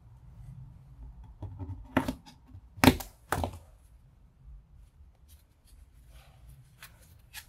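Utility knife cutting through the thick rubber insulation of a welding cable, with handling rustle and a few sharp clicks, the loudest about three seconds in.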